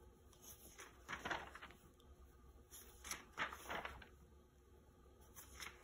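Pages of an old paper magazine being turned and smoothed flat by hand: a few soft paper rustles, about a second in, around three seconds in, and fainter near the end.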